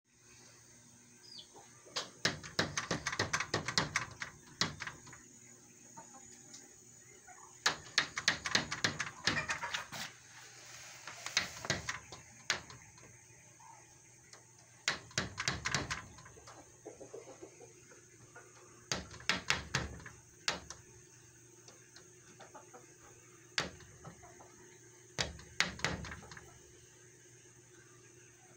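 Chicken beaks pecking against a glass door at a bug on the other side, in bursts of rapid hard taps a few seconds apart.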